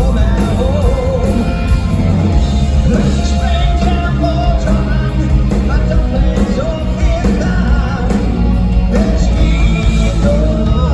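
Live rock band playing loudly, with a sung lead vocal over bass, guitars and drums.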